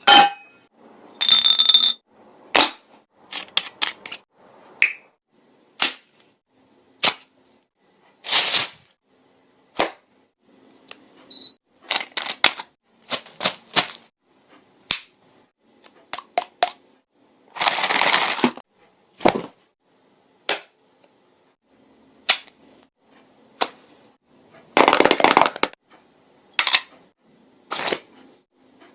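A person making sound effects: a long, irregular string of sharp clicks and pops, broken by a few short hissing bursts, each about half a second long.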